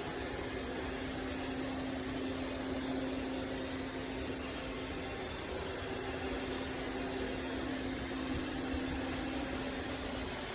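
Kilgone robot vacuum running: a steady motor hum with a faint high whine.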